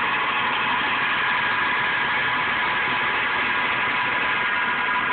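Metal lathe running while a threading tool cuts a thread on a spinning bar: a steady machine whir with a constant high hum.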